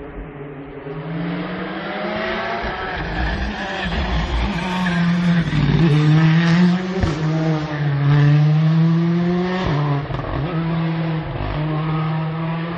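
Rally car engine at full throttle on a tarmac special stage, pitch climbing and dropping back at each gear change, four or five shifts in quick succession. It grows louder as the car approaches and passes, loudest around the middle.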